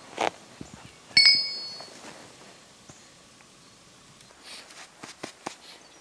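A single sharp clink of steel striking steel about a second in, ringing briefly, as the splitting tools (maul and wedges) are handled. A few soft footsteps in snow follow near the end.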